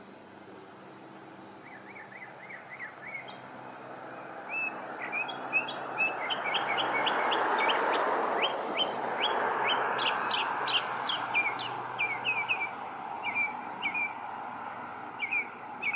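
Northern mockingbird singing: quick runs of short, sharp repeated chirps, starting about two seconds in. Beneath the song, a rushing noise swells to its loudest around the middle and then eases off a little.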